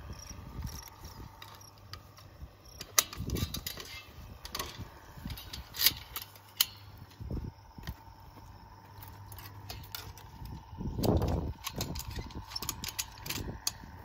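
Barbed wire and hand fence tools clicking and clinking against each other and the wooden post as the wire is worked, with a few sharp snaps and a couple of low rumbles near the end.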